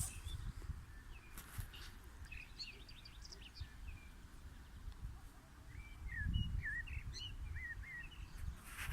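Songbirds singing: two spells of quick chirps and short trills, over a steady low rumble.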